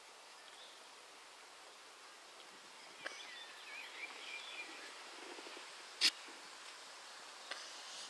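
Quiet outdoor background hiss with a few sharp clicks, the loudest about six seconds in, and faint high chirps in between.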